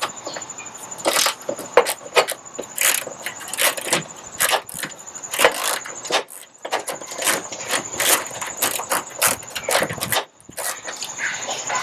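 A wrench working a 10 mm bolt loose on a Jeep hood latch: irregular metallic clicks and clinks, a few a second, with a short pause near the end.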